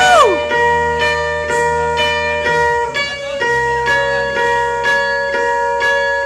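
Live band's instrumental intro: electric guitar picking sustained, ringing notes about twice a second over a low held drone, with a sliding pitch bend right at the start.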